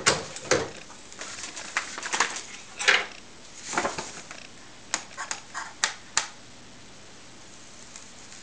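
Paper carrier bag being handled on a heat press: a series of short rustles and crackles, with a quick run of crisp ticks about five to six seconds in, over a faint steady hum.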